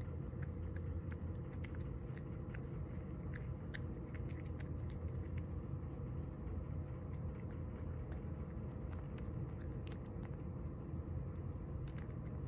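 A cat chewing dried sardine (niboshi) heads: a run of small crisp crunching clicks, thicker in the first half, over a steady low hum.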